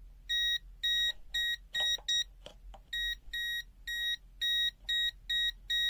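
IVRZLIANG ZL2021 multimeter's non-contact voltage (NCV) alarm beeping, short even high beeps about twice a second, with a brief break halfway through filled by a couple of faint clicks. The beeping means the meter is sensing mains voltage on a live cable.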